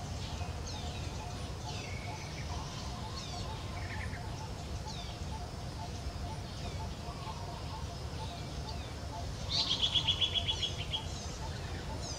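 Small birds chirping with many quick down-slurred chirps, over a faint repeated pipping call. A loud, fast trill rings out for about a second and a half near the end.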